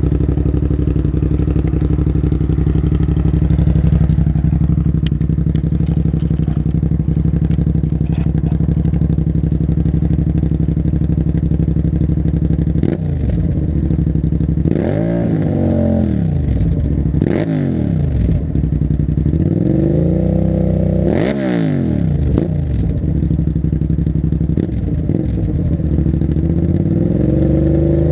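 Suzuki SV650 K5's 90-degree V-twin, breathing through a Delkevic stubby can on standard headers, idling steadily, then revved in four or five throttle blips from about halfway through, each rising in pitch and falling back to idle.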